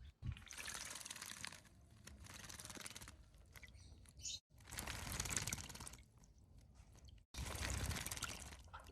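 A light-vented bulbul bathing in a shallow dish of water, splashing in several short bouts of about a second each.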